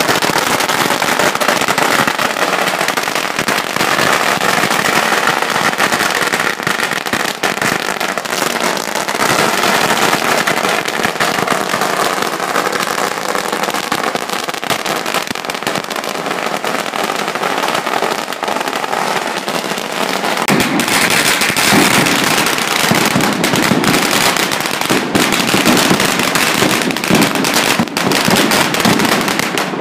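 Strings of firecrackers burning on the ground: a continuous, dense crackle of rapid small bangs, growing fuller and a little louder about two-thirds of the way in.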